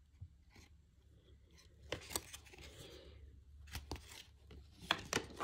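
Topps baseball trading cards shuffled by hand, the card stock sliding and flicking against each other in a few short rustles and clicks.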